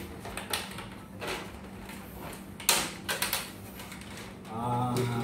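Plastic body shell of an Arrma Kraton 8S RC truck being handled and lifted off its chassis: a few short scrapes and knocks, the loudest about two and a half seconds in. Near the end a man's voice hums briefly.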